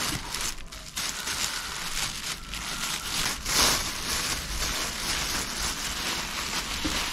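Thin plastic carrier bag crinkling and rustling as it is untied and pulled open by hand, with a louder rustle about three and a half seconds in.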